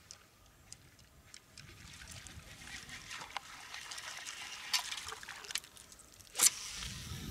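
Baitcasting reel being wound in: a whirring hiss with small clicks that grows louder from about two seconds in. Near the end comes one sharp, loud knock as the rod is swept up.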